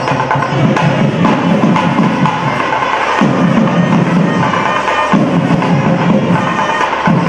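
Traditional temple music with drumming and percussion and sustained tones over it, continuous throughout.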